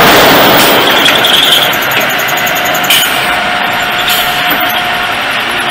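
Multi-spindle vertical pipe drilling machine running: a loud, steady machine noise with a faint steady whine, and a sharp click about three seconds in.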